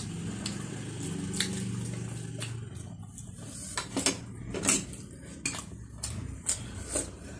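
Metal spoons and forks clinking against ceramic plates and a glass bowl during a meal, a handful of sharp separate clinks in the second half.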